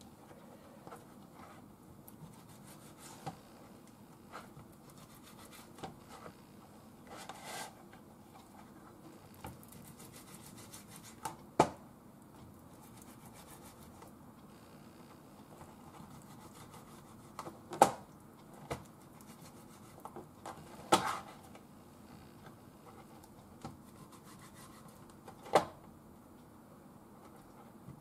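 Kitchen knife cutting raw chicken on a cutting board: quiet slicing and scraping, with a few sharp knocks of the blade against the board spread a few seconds apart.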